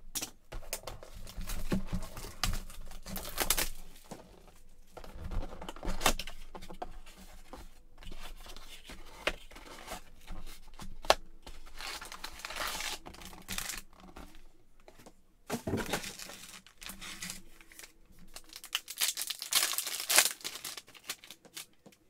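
Cardboard blaster box of Panini Mosaic basketball cards being torn open and its packs ripped, with wrappers crinkling in irregular rasps and sharp clicks.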